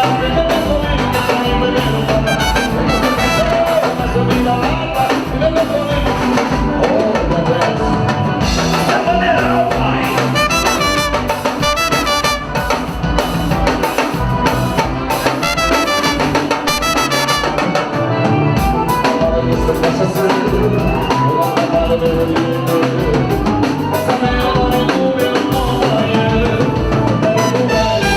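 Upbeat instrumental music with a steady beat.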